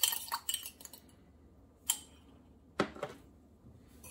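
Metal fork beating an egg in a mug for an egg wash: rapid clinking against the mug that stops about a second in. Then two single sharp knocks about a second apart as the fork and mug are put down.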